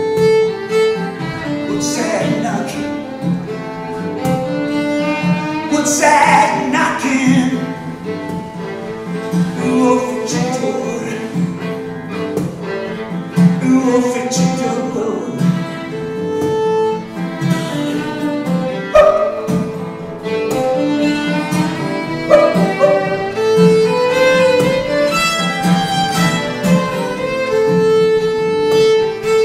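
Fiddle and acoustic guitar playing an instrumental break, the fiddle carrying a sliding melody over the guitar's steady rhythm.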